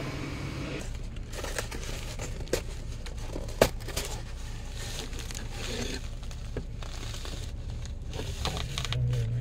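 Cardboard pizza box being handled and opened: crinkling and rustling of cardboard and paper with scattered clicks, the loudest a sharp snap about three and a half seconds in.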